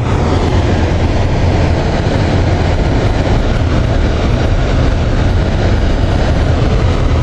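Steady rumble of a car driving, heard from inside the cabin: tyre and engine noise with no changes.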